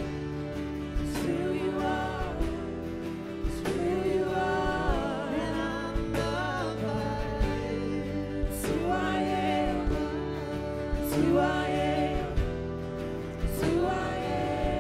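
Live worship music: voices singing a slow gospel chorus in long held phrases over strummed acoustic guitars and sustained chords.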